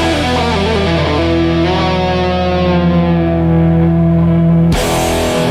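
Punk rock song with distorted electric guitars holding a sustained chord over a low bass note. A new chord is struck sharply near the end.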